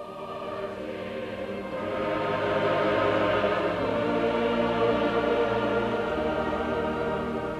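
Choral music: a choir sings slow, sustained chords, swelling louder about two seconds in.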